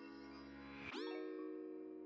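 Soft instrumental background music: sustained chords, with a new chord struck about a second in.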